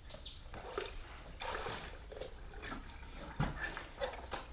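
Faint splashing and sloshing of water as a diver pulls scuba fins onto his feet over the side of a kayak, with rustling of the rubber fins and one soft knock about three and a half seconds in.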